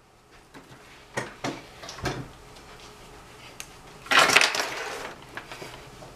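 Handling noises from a person moving about close to the camera: a few light knocks and clatters, then a loud rustling scrape about four seconds in as she steps up and settles in front of it.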